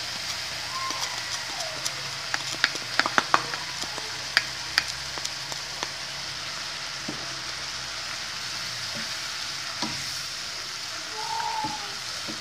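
Chicken and grated carrot filling sizzling steadily in oil in a non-stick wok, with a run of sharp clicks and taps a few seconds in as seasoning is added and the filling is worked with a wooden spatula.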